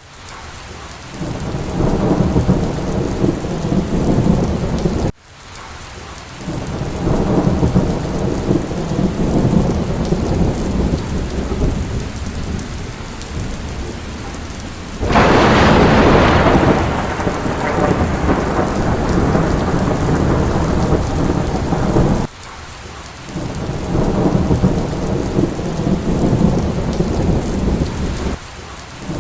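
Steady rain with rolling thunder rumbling in swells. A loud thunderclap breaks about halfway through and fades slowly. The sound drops away abruptly a few times, as if between looped takes.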